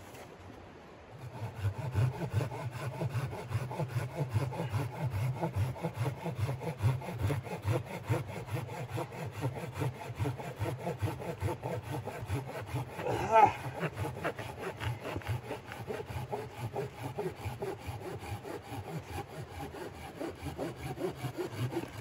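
Small hand saw cutting back and forth through a dry, weathered log in steady, rhythmic strokes that start about a second in. A brief squeak comes about halfway through.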